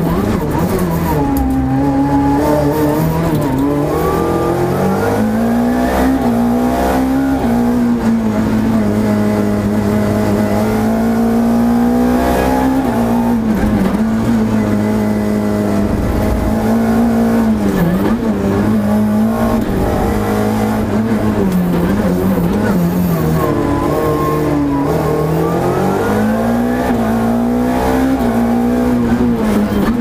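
Renault Clio Group A rally car's four-cylinder engine, heard onboard at racing speed. The engine note climbs hard under acceleration in the first few seconds and again near the end, easing off and dipping briefly in between.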